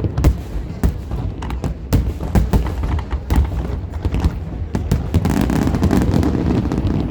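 Aerial fireworks bursting in rapid succession: a dense run of sharp bangs and crackles, growing thicker over the last couple of seconds.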